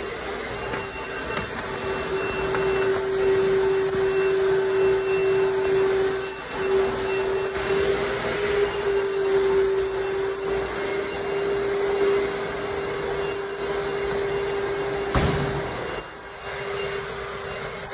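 Pressure washer running steadily, its motor hum under the hiss of the spray. A sharp knock comes about fifteen seconds in, and the sound drops off soon after.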